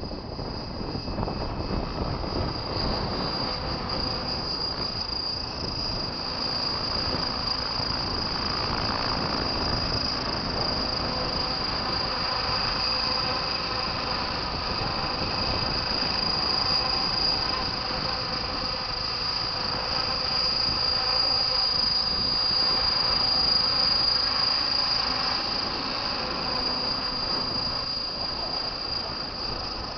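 Radio-controlled helicopter (AVH700V2 "Gazelle" camera carrier) in flight: a steady high whine over the hum and wash of the spinning rotors, swelling slightly as it moves around.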